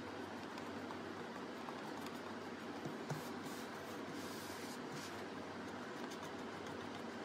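Steady background hiss, with light handling noises: a couple of soft knocks about three seconds in and some brief scraping as a blank face mask is turned over on a wooden table.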